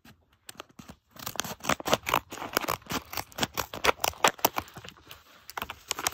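Scissors cutting along the top of a paper bag: a quick run of sharp snips starting about a second in and thinning out near the end.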